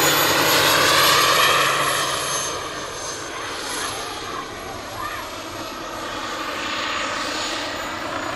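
Turbine-powered SA-315B Lama scale model helicopter flying past: a steady high turbine whine over the rotor noise. It is loudest about a second in as it passes close, then eases off as it moves away.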